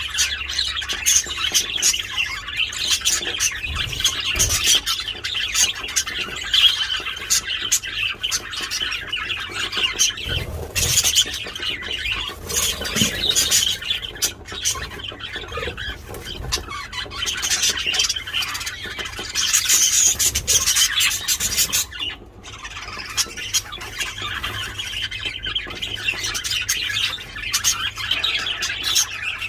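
Several pet budgerigars chattering and squawking loudly, a dense unbroken mix of warbling and sharp calls with a brief lull about two-thirds of the way through.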